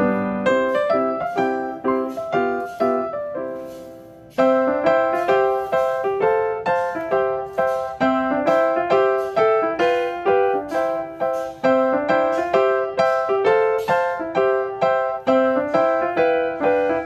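Background piano music: a gentle melody of single struck notes that dies away about four seconds in, then starts up again.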